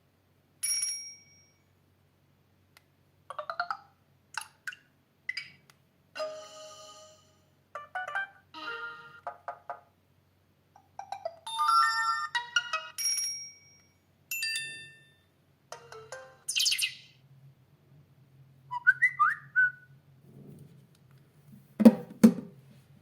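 Samsung Galaxy GT-S6802 phone's speaker playing a string of short electronic ringtone and alert jingles, a different brief tone or melody every second or two. A sharp knock near the end.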